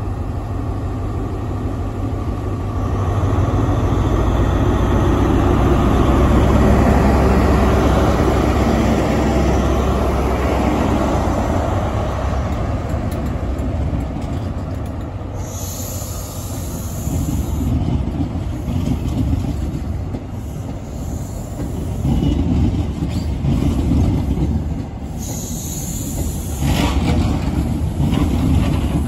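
Class 43 HST power car's diesel engine pulling a test train out under power, its low rumble building to its loudest a few seconds in as the locomotive passes. Then come the coaches' wheels rolling over the rails with rhythmic clacks, and two brief high-pitched wheel squeals, one around the middle and one near the end.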